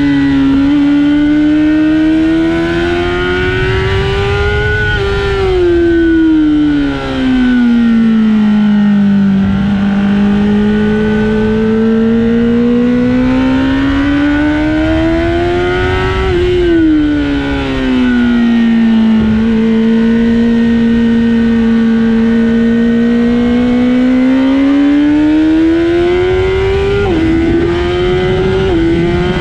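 Honda CBR1000RR Fireblade's inline-four engine at full song on track, its pitch climbing slowly and steadily for several seconds at a time, then falling sharply twice as the revs drop. Near the end the pitch steps down twice in quick succession and climbs again, like quick upshifts.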